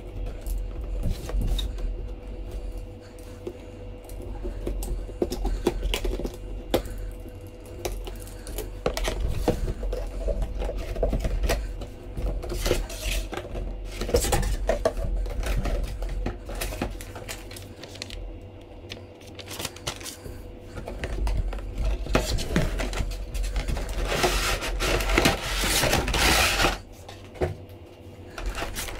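Cardboard figure box being handled and opened by hand: scattered scrapes, taps and clicks. Near the end, a stiff clear plastic blister tray crinkles and rustles as it is pulled out.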